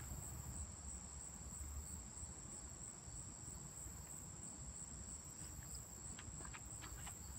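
Faint, steady high-pitched insect chorus over a low rumble.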